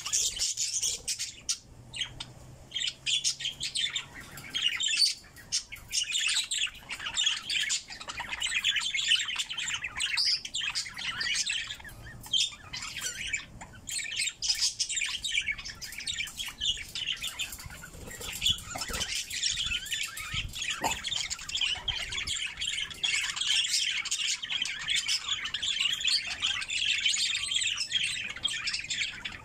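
Budgerigars chattering: a dense, continuous mix of chirps, warbles and squawks.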